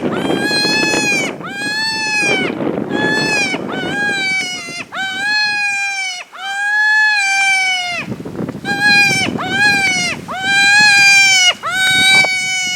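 Diaphragm predator call blown as a cottontail rabbit distress sequence: a string of loud, high wailing cries, about one a second, each held and dropping at its end. A low rumble of wind sits under most of the cries.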